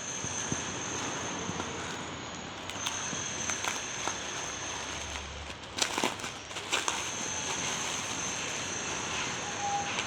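Crackling and rustling, with a cluster of sharp clicks about six to seven seconds in, typical of a parcel's plastic packaging being handled and opened. A steady thin high whine runs underneath.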